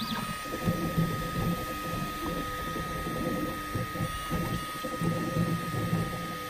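Ultimaker 3 Extended 3D printer at work: its stepper motors hum in short runs that start and stop as the print head moves, over a steady high-pitched whine.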